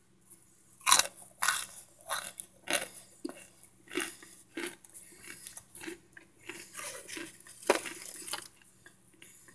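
Crunching and chewing of microwaved Argo cornstarch chunks, close up: a run of sharp crunches about every half second, starting about a second in, with the loudest bites at the start and again near the end.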